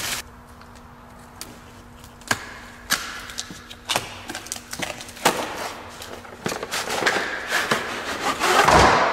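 Handling noise from unpacking a cardboard box of sockets: plastic wrap and cardboard rustling, with scattered clicks and taps as the box end is slit open and its flap pulled back. The rustling grows loudest near the end as the inner contents are drawn out.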